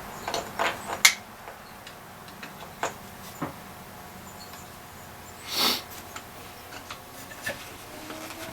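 Small tools and parts of a disassembled router being handled on a workbench: scattered clicks and knocks at irregular intervals, the sharpest about a second in, and one longer, softer rustle about five and a half seconds in.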